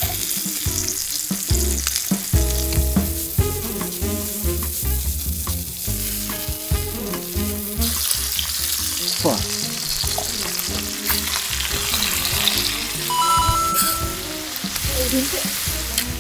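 Beef short ribs and steak sizzling in melted butter on a hot steel griddle, a steady frying hiss. Tongs and kitchen scissors click now and then as the meat is cut and turned.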